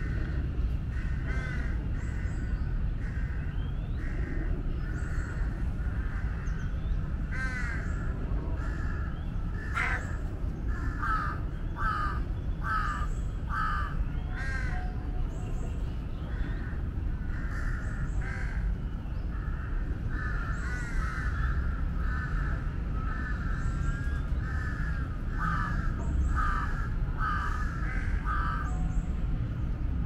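Crows cawing over and over in long runs of short calls, over a steady low rumble, with one sharp click about ten seconds in.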